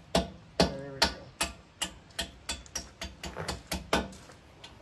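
Sharp metallic clicks and clinks, about three a second and a little irregular, a few of them ringing briefly, from a coilover shock and its mounting hardware being worked into place on a truck's axle mount.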